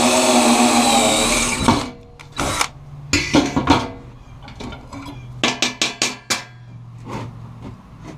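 A power tool's motor running steadily, then shutting off a little under two seconds in, followed by a string of sharp knocks and clanks of metal parts being handled.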